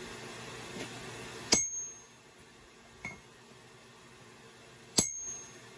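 A hammer striking a handled eye punch held on hot steel on the anvil, punching the eye of a forged hammer head: two sharp, ringing metallic blows about three and a half seconds apart, with a lighter clink between them.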